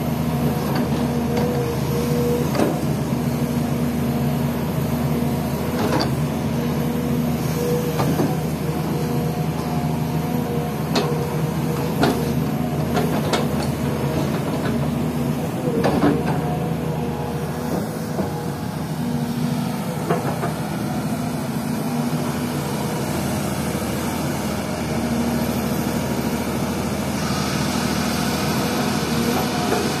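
SDLG E6210F crawler excavator's diesel engine running steadily under hydraulic load as it digs soil, with sharp clanks now and then from the bucket and boom.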